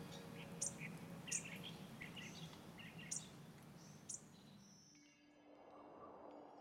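Birds chirping in short, scattered calls over a steady background hiss and a low hum, the whole ambience fading out about five seconds in. Faint, soft music with held tones comes in near the end.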